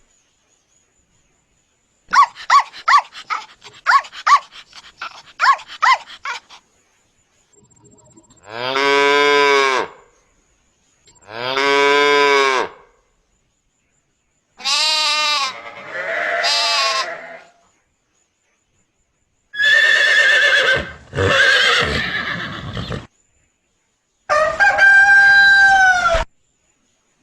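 A run of recorded farm-animal sounds, one after another: a dog barking about ten times in quick succession, a cow mooing twice in long calls, a sheep bleating, a horse neighing, then a chicken call near the end with a held note that falls at the close.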